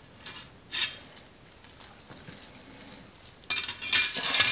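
Metal clinking and rattling of a Weber rotisserie spit fork being handled and fitted onto the steel spit rod: a faint clink about a second in, then a quick run of clinks near the end.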